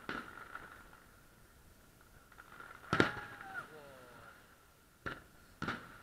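Fireworks shells bursting: a bang at the start, the loudest about three seconds in, then two more half a second apart near the end, each trailing off after the crack.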